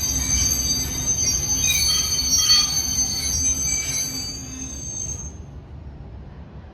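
Train wheels squealing against the rails, two steady high-pitched tones over a low rumble. The squeal fades out about five seconds in as the rumble gets quieter.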